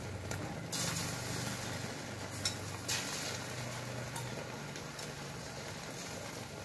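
Beaten egg sizzling in a hot aluminium wok as it is spooned over eggplant slices, a steady hiss with a few sharp clinks of a metal spoon against the pan and bowl.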